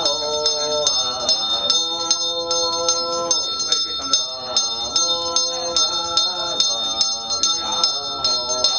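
A small metal bell struck in a fast, even rhythm, several strikes a second, under a voice chanting in long held notes that slide between pitches, as in a Chinese funeral rite.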